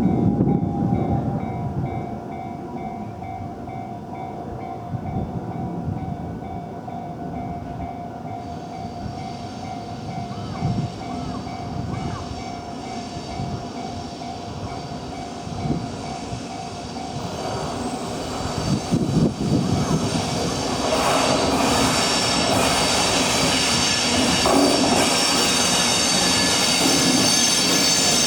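Freight train rolling through a level crossing, its wheels rumbling over the rails while the crossing's warning bell keeps ringing. In the second half the passing grows louder, and the wheels set up a sustained high squeal against the rails.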